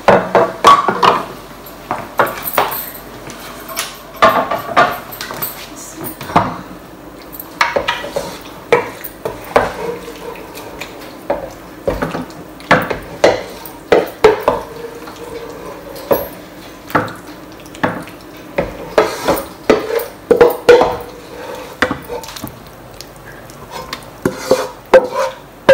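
A spatula scraping and knocking against a wok as curry is scooped out into a ceramic serving dish: irregular clinks and scrapes. Near the end the wok is tipped over the dish.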